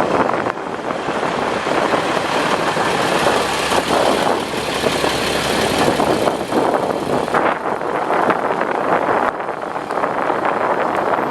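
KiHa 40 diesel railcar running on the line, a steady rumble and clatter of engine and wheels that swells and eases slightly.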